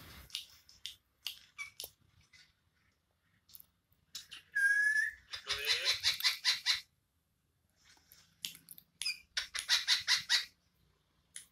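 Parrot calls: a few short clicks and chirps, then a single clear whistle, then two spells of rapid, harsh chattering.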